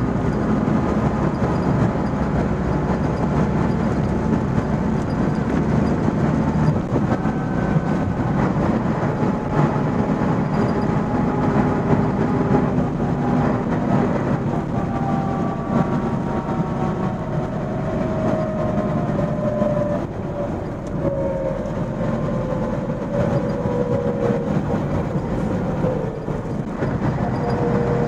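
MAN 16.370 HOCL coach heard from inside the passenger cabin while under way: a steady engine and road rumble with a whine whose pitch falls slowly over the second half, then jumps back up near the end.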